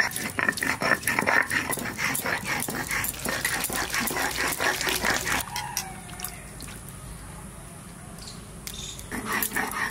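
Stone roller scraped back and forth on a flat stone grinding slab (shil-nora), grinding cumin into paste in quick, even strokes. About halfway through the strokes stop and give way to a softer, steady pour of water into a metal bowl of mushrooms, and the grinding strokes start again near the end.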